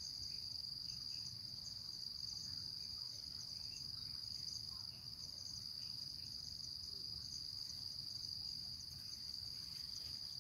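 Steady, high-pitched insect chorus: one continuous shrill drone at a single pitch, with a faster pulsing trill just above it, over faint low background noise.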